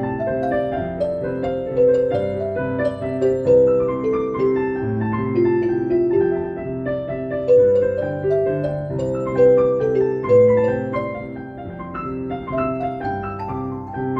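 Instrumental interlude of a song: a piano plays a melody of struck, held notes over sustained lower chords.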